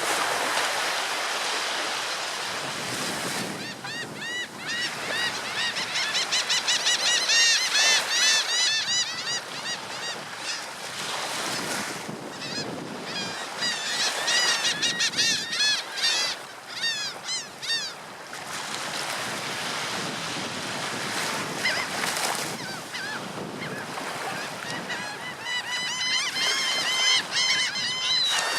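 Surf washing steadily onto a beach, with gulls giving rapid series of short calls in three spells: from about four seconds in, again about twelve seconds in, and near the end.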